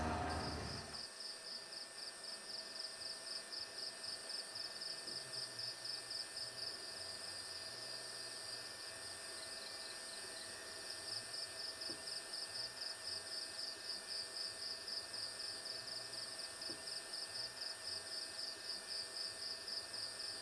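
Insects chirping in a high, steady, pulsing trill of about three to four pulses a second, with a short lull about nine seconds in before it picks up again. Right at the start, a louder vehicle sound with voices cuts off about a second in.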